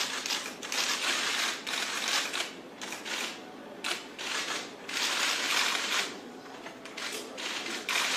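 Many camera shutters clicking in rapid, dense bursts, with short lulls between volleys.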